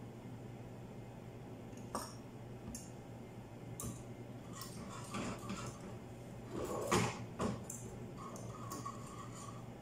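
Metal whisk stirring oatmeal in a saucepan, clinking and scraping against the pan in scattered strokes, busiest and loudest about five to seven and a half seconds in.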